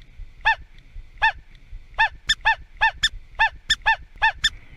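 A person imitating a bird with a string of about a dozen short, high honking calls, each rising and falling in pitch, slow at first and then coming about three or four a second.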